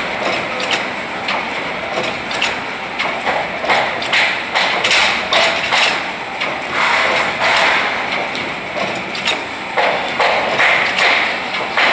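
Rubber fridge-magnet sheets being handled by hand after half-cut pressing: peeling off the waste and knocking the magnets into stacks, heard as frequent uneven knocks and clicks over a continuous noise.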